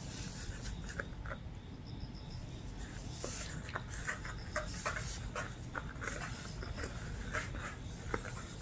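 Shih Tzu puppies playing with a rope string toy: many short, high squeaks and yips, with the cotton strings rustling and dragging on the floor mat.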